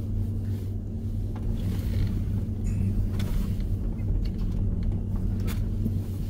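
Truck engine running steadily at low speed, heard from inside the cab as the truck crawls over a rough dirt road, with a few light knocks and rattles.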